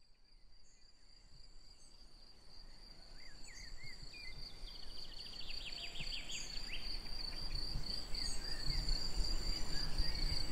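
Insects chirring in one steady high tone, with a few scattered bird chirps and a quick descending trill about five seconds in; the whole fades in gradually from near silence.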